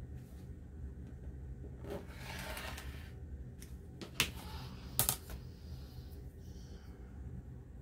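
Rotary cutter rolling through thin old cotton along an acrylic ruler on a cutting mat: one short scratchy pass about two seconds in. Then two sharp plastic clacks, about a second apart, as the cutter and ruler are put down and lifted on the mat.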